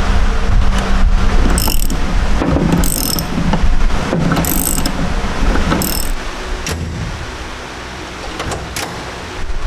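Socket ratchet wrench clicking in about four short runs as a door latch pin is tightened, over a steady low hum.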